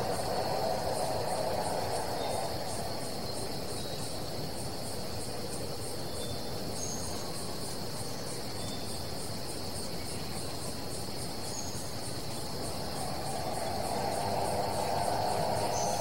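Rainforest insect chorus: a steady high-pitched buzz with a faster, evenly pulsing higher trill over it. A soft rushing noise is stronger in the first couple of seconds, fades, and swells again near the end.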